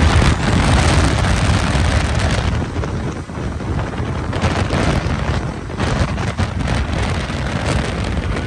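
Wind buffeting the microphone of a moving motorcycle, over the running of motorcycle engines. It is loud throughout, with a brief dip about three seconds in.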